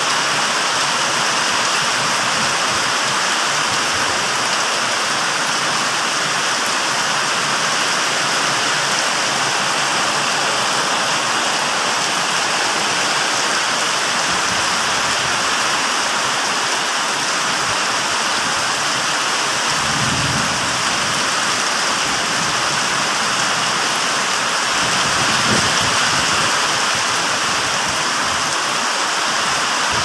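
Heavy tropical rain pouring steadily onto concrete paving and a road, an even, unbroken hiss.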